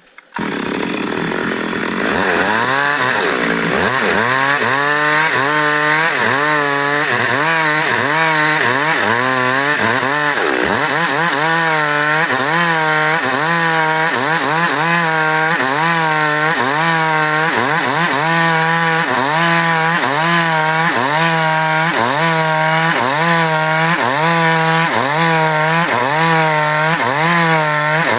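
Chainsaw running while cutting wood, its engine pitch dipping and rising about once a second.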